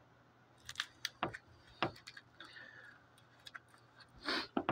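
Handling noise: a handful of light, sharp clicks and taps as a stack of plastic ID cards is held and shifted in the hand while the phone is moved, with a short rustle near the end.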